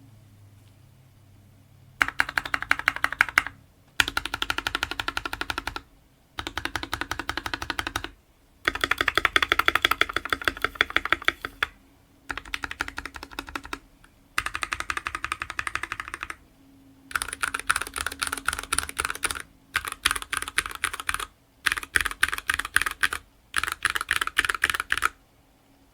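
GK61X 60% mechanical keyboard with lubed Gateron Red linear switches being typed on fast, in about nine bursts of rapid keystrokes a second or two long with short pauses between, starting about two seconds in.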